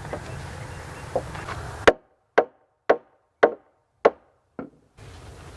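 Six sharp hammer blows on a log floor joist, about two a second, the last one lighter, with dead quiet between the blows.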